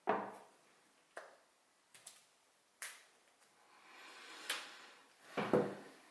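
Handling of a glass perfume bottle and its cap: a string of separate sharp clicks and knocks, about six in six seconds. The loudest, fullest knock comes near the end.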